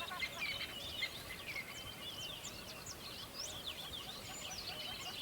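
Several songbirds chirping and singing together: a dense stream of short, quick whistled notes that sweep up and down in pitch, over a faint steady background hiss.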